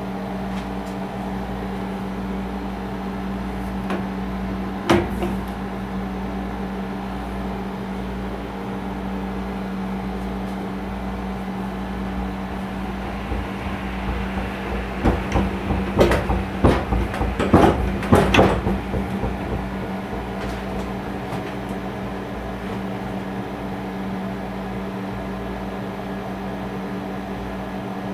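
Motor-driven honey extractor spinning honeycomb frames, a steady hum. A single knock about five seconds in, and a burst of clattering and knocking from about halfway through that lasts a few seconds.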